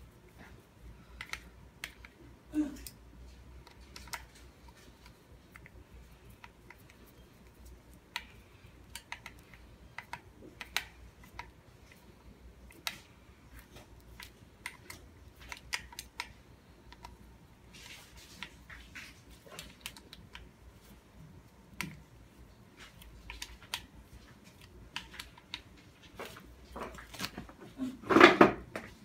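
Irregular small metallic clicks and ticks of a T-handle screwdriver turning the bolts that hold a disc brake rotor to a bicycle hub. Near the end comes a louder rustle and knock as the wheel is handled.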